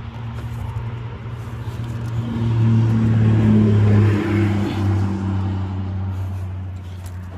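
A motor vehicle engine running with a steady low hum, swelling louder a little over two seconds in and easing off again from about four and a half seconds.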